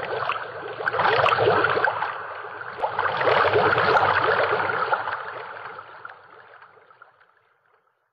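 Rushing noise of a TV station ident sound effect, swelling twice and then fading away near the end.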